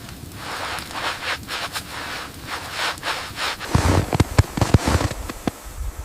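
A series of rubbing and scraping strokes, then from about two-thirds in a quick run of heavier knocks and crunches lasting about a second and a half.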